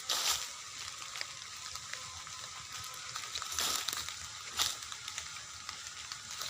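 Steady hiss of light rain falling, with a few brief rustling crackles in between.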